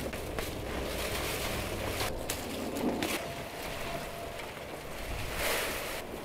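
Dry, dead plant stalks and leaves rustling and crackling as they are pulled up and carried in an armful, with a few sharper crackles among the rustle.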